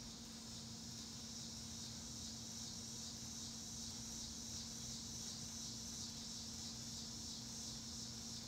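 Steady, high-pitched insect chorus with a fine pulsing texture, with a faint steady low hum underneath.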